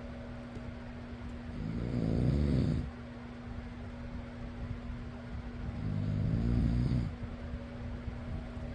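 A person snoring: two low, rasping snores about a second long and roughly four seconds apart, over the steady hum of an electric fan.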